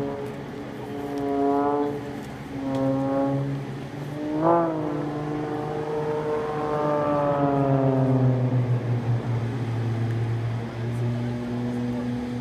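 Engine of a single-engine propeller aerobatic race plane droning overhead as it manoeuvres. Its pitch keeps changing: short surges early on, a brief sharp rise and fall about four and a half seconds in, which is the loudest moment, then a long slide down in pitch as the plane pulls away, settling into a steady low drone near the end.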